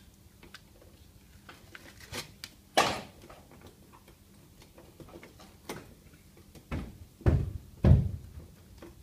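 Gloved hands fitting a self-adhesive sound-deadening sheet to the inner metal panel of a Mitsubishi Outlander door: scattered small clicks and rustles, a sharp click about three seconds in, and three dull thumps against the door panel near the end.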